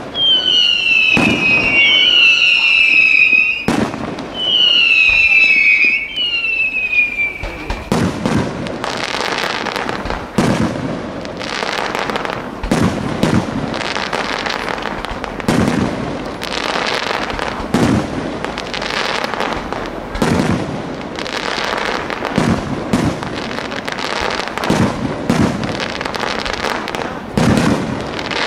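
Aerial fireworks display: over the first several seconds, four or five long, falling whistles sound over scattered bangs. After that comes a steady barrage of shell bursts, about one to two bangs a second, over continuous crackling.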